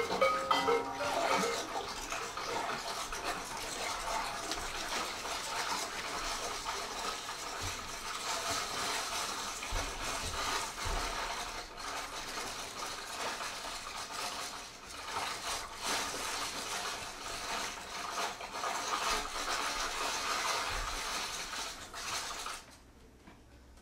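Live experimental percussion: a dense, unbroken texture of small clicks and rattles, with no steady pitch, cutting off abruptly near the end.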